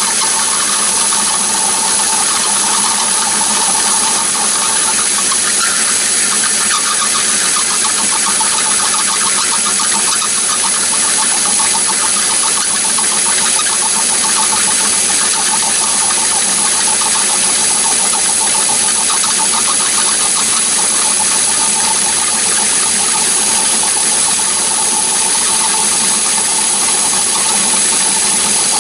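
Myford ML7 lathe running steadily under power, the workpiece turning in the chuck as the tool feeds into its bore, with a steady high whine over the machine's running.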